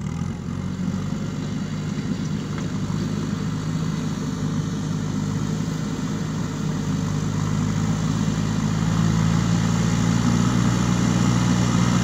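JCB 3DX Super backhoe loader's diesel engine running steadily as the machine pushes soil with its front loader bucket, growing louder as it comes closer.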